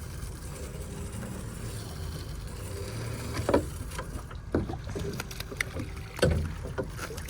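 Small boat on the water with a steady low rumble, and a few sharp knocks and clatters in the second half as a lobster net's buoy line is caught with a grapple.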